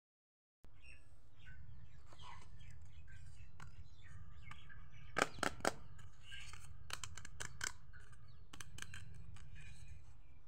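Plastic clicking and tapping as a small plastic toy stove is handled, with three sharp clicks about halfway through and a few lighter ones after. Faint bird chirping and a steady low hum lie underneath.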